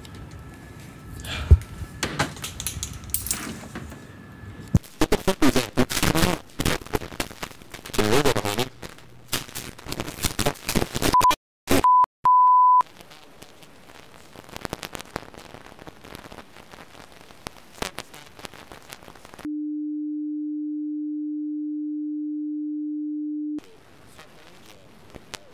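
Jumbled clicking, knocking and rustling. Then comes a quick run of three short high censor-style bleeps. After some fainter clicking, a single steady low electronic tone sounds alone for about four seconds and cuts off suddenly.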